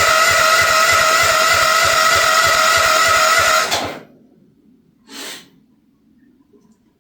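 Future FT15 mini excavator's engine cranking on its electric starter in the cold, choked and at mid throttle, with a steady starter whine over an even beat of compression strokes; it stops just under four seconds in without the engine catching, which the operator suspects is down to the shut-off switch being in the wrong position. A brief hiss about five seconds in.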